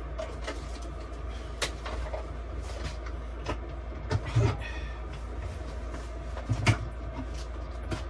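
Small knocks and thuds of things handled in a camper's cabinet: a container set down and cupboard doors moved, the loudest a little after four seconds in and at about six and a half seconds in. A steady low hum runs underneath.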